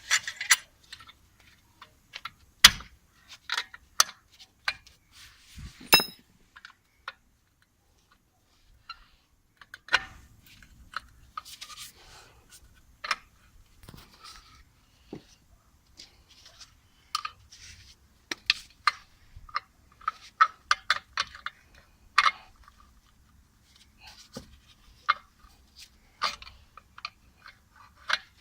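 Metal hand tools and brake parts clinking and knocking in irregular sharp taps, with a few seconds of quiet about a third of the way in.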